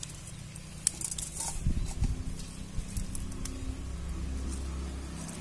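Dried red chillies being snapped in two by hand over a steel plate: scattered dry snaps and crackles. A low steady hum underneath grows stronger after about four seconds.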